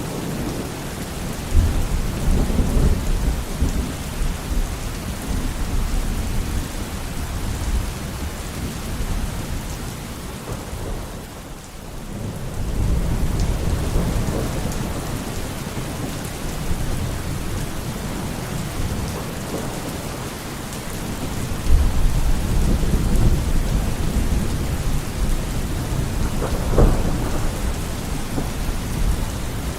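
Steady heavy rain hissing, with low rolling rumbles of thunder swelling up three times: about a second and a half in, just before halfway, and about two-thirds of the way through. The level dips briefly just before the middle rumble.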